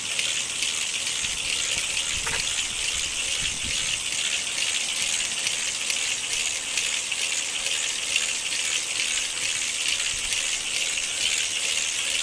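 Adventure Force Stunt Savage toy remote control car running: a steady, high-pitched whirring noise from its small electric drive motors and gears.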